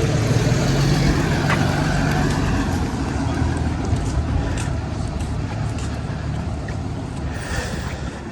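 A motor vehicle driving past with a low rumble that is loudest about a second in and slowly fades away.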